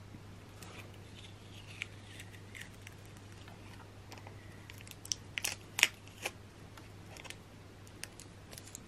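Sellotape being carefully pulled off and handled: scattered small clicks and crackles, with a cluster of louder sharp snaps about five to six seconds in, over a faint steady hum.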